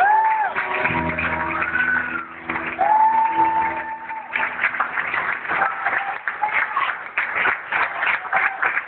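A singer holds long final notes, sliding into and out of pitch, over sustained keyboard chords; the music ends about four seconds in. Then the congregation breaks into steady applause and clapping.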